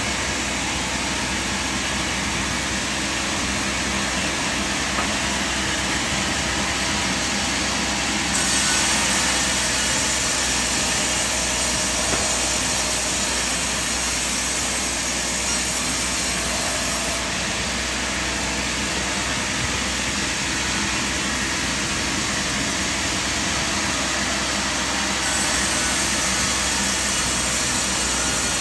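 Sawmill machinery running steadily, a dense mechanical noise with a faint hum. The level and hiss shift suddenly three times, about every eight seconds.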